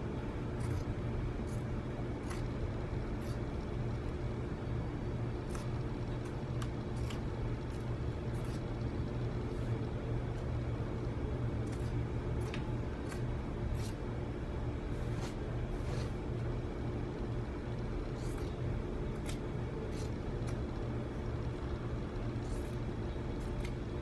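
Fabric scissors snipping through knit t-shirt fabric: short, sharp snips at an irregular pace, over a steady low hum.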